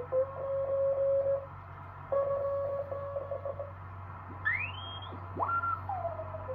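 Morse code (CW) signals on the 40-meter band from the speaker of an HBR-13 dual-conversion tube receiver. A single beat note is keyed on and off in two runs, then whistling tones sweep up and down in pitch as the dial is tuned across the band, over a hiss and a low hum.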